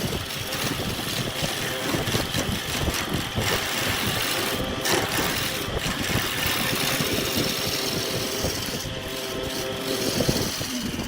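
Wood lathe running steadily, with a turning tool scraping against the spinning wood.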